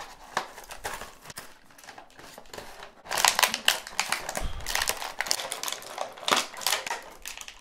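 Stiff clear plastic of an action-figure blister pack and its cardboard backing crinkling and crackling as the pack is torn open and the figure pulled from its plastic tray, with rapid irregular clicks and rustles that get busier about three seconds in. A soft low thump comes about halfway through.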